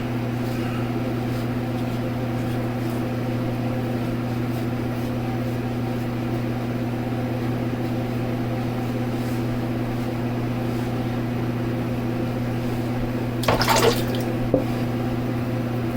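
Electric fan running with a steady low hum, and a brief burst of noise about two seconds before the end.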